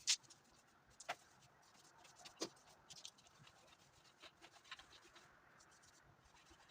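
Varnish roller worked over a rough plastered wall: faint scratching, with a few sharp clicks in the first few seconds.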